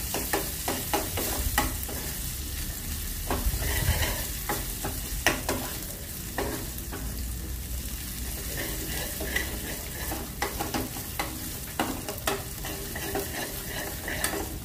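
Sliced onions frying in ghee in a small metal pan, sizzling steadily while they brown, with a metal spoon scraping and clinking against the pan at irregular moments as they are stirred.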